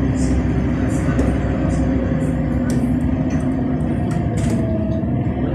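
NefAZ 5299 city bus heard from inside the cabin while driving: a steady engine and road rumble with short high-pitched ticks and rattles now and then.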